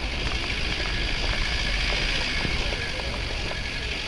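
4x4 vehicle driving off-road on an unpaved mountain track: steady engine and road rumble with a hiss of tyre noise and a few small knocks.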